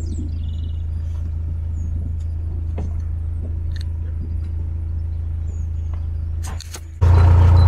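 Narrowboat's diesel engine running steadily while cruising, a low even thrum.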